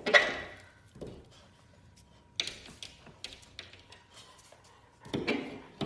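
A young golden retriever barking at a glass door: one sharp bark at the start and another about five seconds in, with a few faint taps in between.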